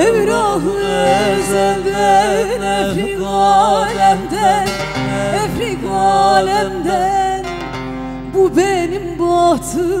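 A woman singing a türkü (Turkish folk song) in long, ornamented phrases with wavering pitch, over plucked bağlama (saz) accompaniment and steady low sustained notes.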